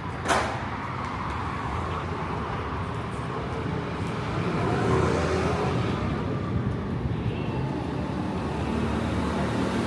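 City street traffic: motor vehicles running and passing, one swelling louder about halfway through, with a sharp short knock or clatter right at the start.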